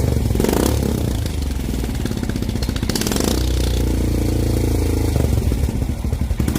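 Motorcycle engine running through an aftermarket exhaust, with a low, pulsing exhaust note that holds steadier in the middle and is less even near the start and end.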